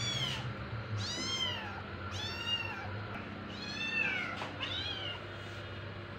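Kittens meowing, about five short high-pitched meows in quick succession, as they beg for the food held out to them, over a steady low hum. The meows stop about five seconds in.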